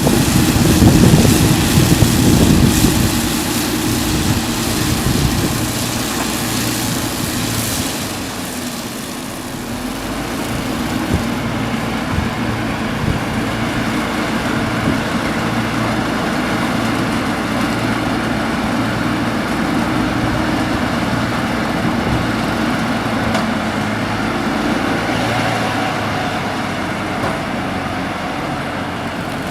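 Crush baler running: a steady machine drone from its engine and hydraulics with a low, regular pulsing underneath. Louder and harsher for the first few seconds, it eases off briefly about eight seconds in, then runs on evenly.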